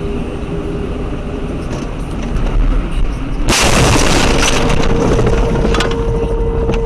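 Car collision heard through a dashcam: steady road and engine noise, then a sudden loud crash of impact a little past halfway that dies away over about a second with scattered clicks. A steady tone sets in just after the crash.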